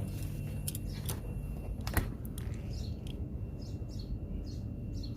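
Steady low hum of the freshly recharged chiller running, with two sharp clicks in the first half. From about halfway, a bird chirps in short calls every few tenths of a second.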